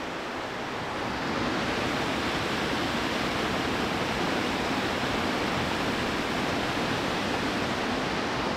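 A small waterfall and the rapids below it rush steadily, a little louder from about a second in.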